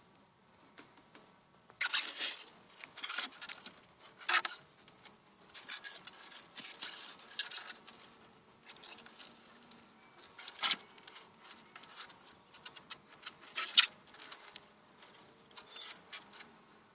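Wooden hive frames and a divider board being shifted and scraped with a metal hive tool inside a wooden beehive: irregular scrapes, rustles and sharp knocks, the loudest knock near the end. Honeybees buzz faintly underneath.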